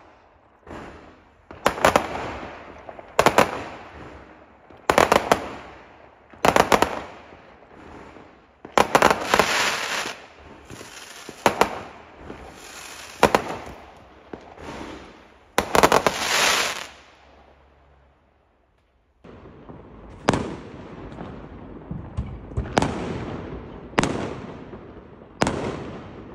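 Fireworks going off: a run of sharp bangs about every second and a half, each with an echoing tail, with crackling bursts among them. There is a brief silent gap about two-thirds of the way through, then the bangs start again.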